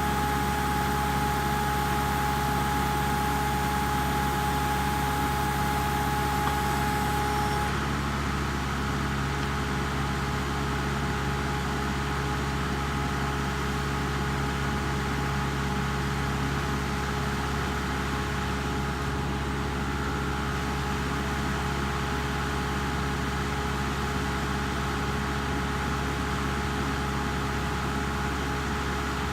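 Kubota MX5800 tractor's diesel engine running steadily at an even speed. A high steady whine over the engine drops out about eight seconds in.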